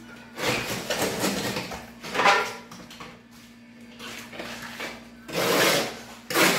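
Several bursts of scraping and rasping as wet concrete is worked by hand over a doorway lintel, against a steady low hum.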